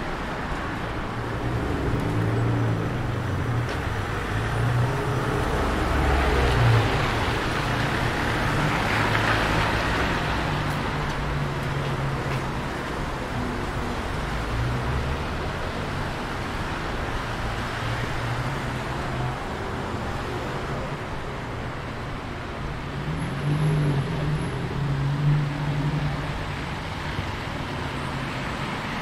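Street traffic on a wet road: cars passing with the hiss of tyres on the wet surface, one swelling and then fading about nine to ten seconds in.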